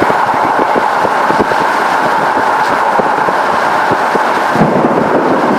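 Steady road and wind noise of a moving vehicle heard from inside, with a dense, irregular patter of small knocks.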